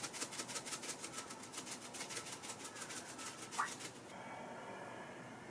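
Dried parsley being sprinkled from its container over a bowl of food: a quick, even rasping rattle of about seven strokes a second, stopping about four seconds in.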